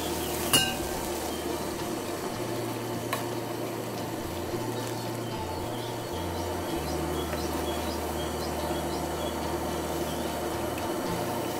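Large pot of pasta water at a rolling boil with fresh fettuccine cooking in it, beside a pan of ragu cooking on a two-burner gas camp stove, a steady bubbling hiss. A sharp knock about half a second in, and a fainter one about three seconds in.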